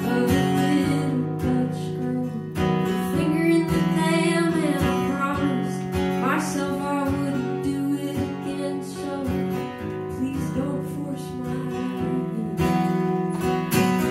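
Acoustic guitar strummed steadily, with a woman singing over it in a live solo performance.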